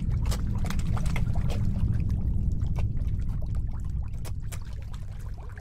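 Water sloshing and splashing against a small boat's hull in short irregular splashes over a steady low rumble, fading over the last second or two.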